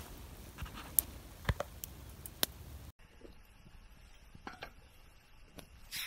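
Small wood campfire crackling, with a few sharp pops over a steady hiss. About halfway the sound cuts off abruptly to something quieter, with a few faint crackles and rustles as crusty bread is handled and broken.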